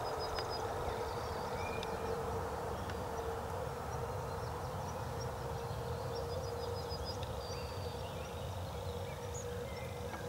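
Distant electric train running out of earshot: a faint steady rumble with a held hum that slowly fades. A few faint bird chirps are heard near the start and again after about six seconds.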